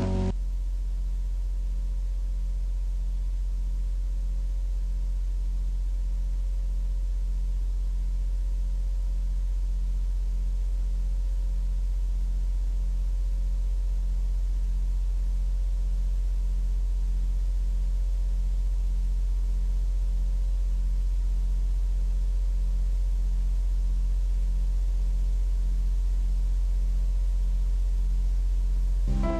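Steady electrical hum: a strong low drone with several faint steady tones above it and a slow, even pulsing in the hum.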